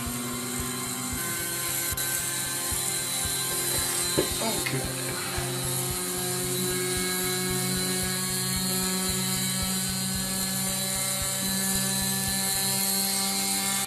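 Small electric motor driving a gyroscope rotor, running with a steady whir and a rapid, irregular ticking.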